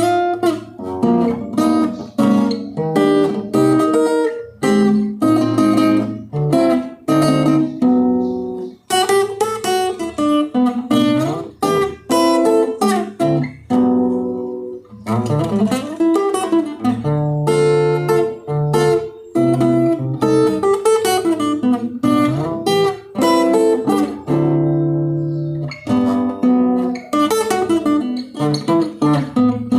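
Acoustic guitar playing a run of picked notes and chords, with brief pauses between phrases.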